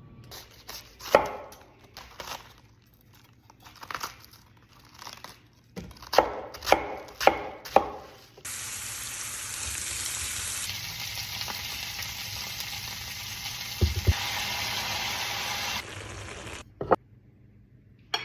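Knife chopping on a cutting board: scattered sharp strikes, then four hard chops about two a second. Then food sizzling as it fries in a hot pan, a steady hiss lasting about eight seconds that cuts off suddenly.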